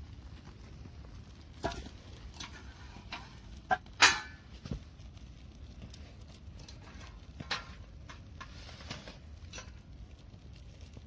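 A few scattered sharp snaps and knocks over a faint steady hiss. The loudest comes about four seconds in, with smaller ones just before it and one more about seven and a half seconds in.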